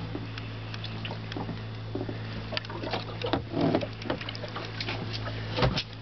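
A boat's motor idling with a steady low hum, under scattered knocks and clicks, the loudest a sharp knock near the end.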